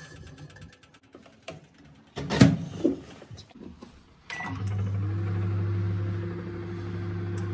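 A metal pan clinks on an oven rack, then a convection microwave oven door shuts with a loud knock. A short beep sounds as the start button is pressed, and the oven starts running with a steady low hum as it begins baking.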